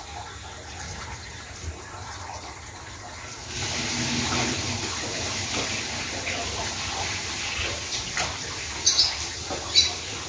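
Running water, a steady rush that gets louder about a third of the way in, with a few sharp knocks near the end.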